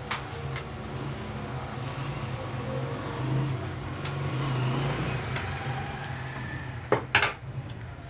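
Metal parts and tools clinking and tapping as a buttonholing sewing machine is taken apart, with two sharp metallic clacks about seven seconds in, over a steady low hum.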